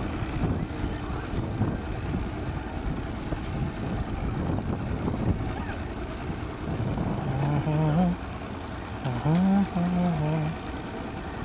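Low rumble of support-boat motors and wind on the microphone across the harbour. Indistinct voices talk briefly in the second half.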